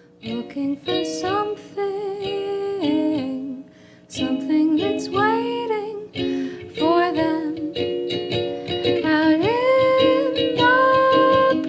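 Nuke 3D-printed ukulele played with a woman's voice singing a melody over it. The music dips briefly just before 4 seconds in, then carries on.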